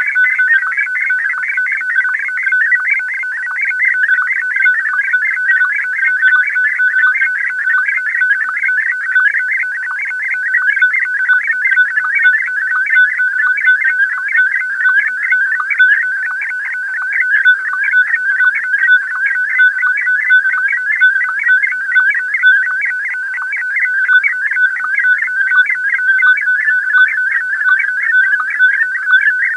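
Radio data signal of the kind used for slow-scan television (SSTV) image transmission: a loud, steady, high warbling tone broken by fast, regular pulses.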